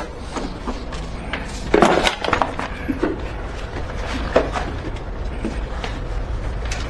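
Scattered knocks, clicks and clatter of things being handled, loudest about two seconds in, over a low steady hum.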